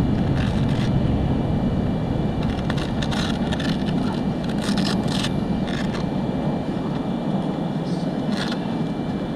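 Scattered clicks and rustles of an RC car's plastic body and shroud being handled and fitted, a handful of them around the middle and one more near the end, over a steady low noise and a faint high steady tone.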